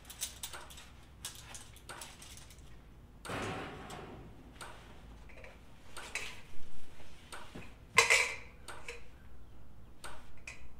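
Clicks and clanks of clamp-on heat lamps with aluminium reflector domes being handled, with a brief rustle and two sharp knocks in the second half, the louder one about eight seconds in.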